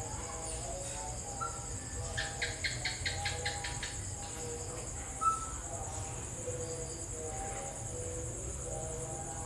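Insects trilling steadily in a continuous high-pitched drone. Scattered short chirps sound lower down, and a rapid run of about eight sharp calls comes about two seconds in.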